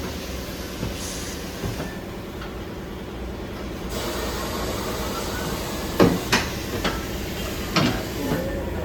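Tyre-fitting work on a motorcycle wheel: a steady hiss with several sharp knocks, bunched between about six and eight seconds in.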